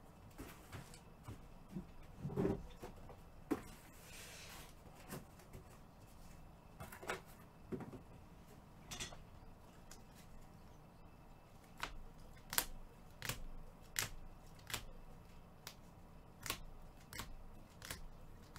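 Prizm and Optic basketball trading cards being handled and sorted by hand: scattered sharp clicks and taps, with a short rustle about four seconds in.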